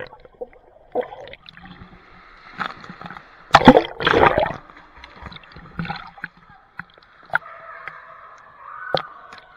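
Pool water heard from a camera held underwater: muffled gurgling and sloshing, with a loud rush of bubbles and splashing about three and a half seconds in as a swimmer kicks past.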